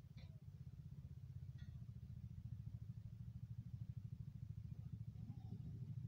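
Faint, low engine rumble with a fast, even pulse, growing slightly and dying away at the end.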